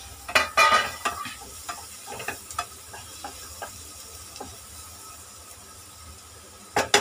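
Wooden spatula stirring and scraping chopped tomatoes and onions around a nonstick kadai, over a steady low sizzle of frying. There is a quick run of scraping strokes in the first second, then scattered single strokes, and another couple near the end.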